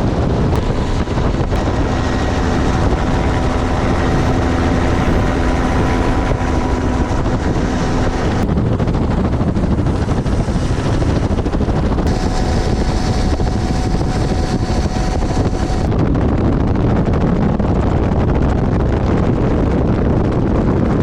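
Helicopter in flight: steady, loud engine and rotor noise with wind on the microphone.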